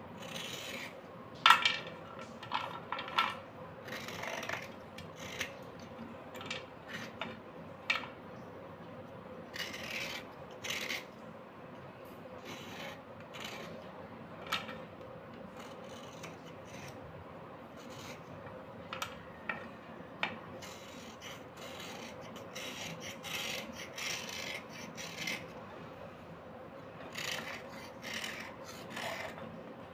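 Small metal knife blade scraping along a slate pencil in short, irregular rasping strokes. A few sharper clicks stand out, the loudest about a second and a half in.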